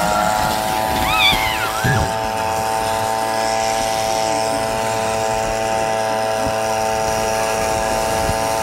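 A steady machine drone, as of a running motor, holding one even pitch throughout, with a brief high, sliding squeal about a second in.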